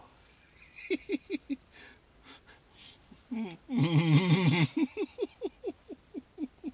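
A man laughing: a few short 'ha' pulses about a second in, then a loud, wavering burst of laughter a little past halfway that trails off into a run of short falling 'ha's, about three a second.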